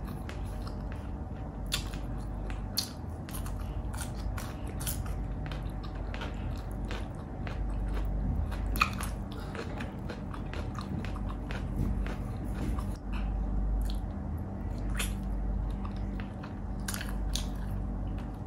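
Close-up chewing and biting of fried pork belly bistek, with irregular crunches and clicks.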